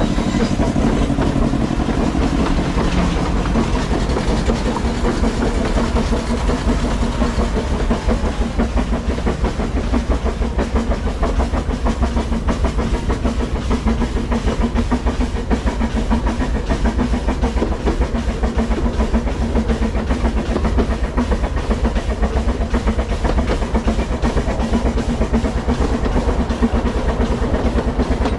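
Narrow-gauge steam train running along the line, heard from on board: a steady low rumble with a rapid, continuous clatter of wheels on the rails.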